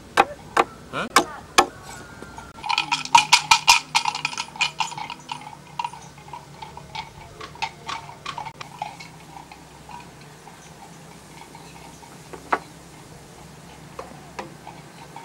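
Machete chopping into a wooden log, sharp strikes about two a second for the first second and a half. Then a quick run of sharp knocks and clicks, the loudest part, followed by scattered lighter taps and one sharper knock near the end.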